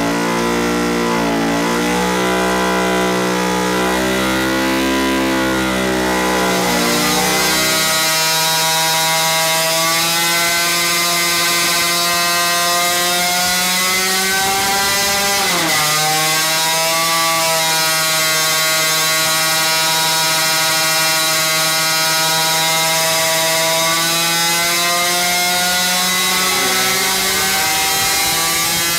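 Supercharged 50cc two-stroke engine running on a test stand, revving up from low RPM in the first several seconds and then holding a steady high buzzing pitch at around 11,000 RPM. The pitch dips briefly about halfway through.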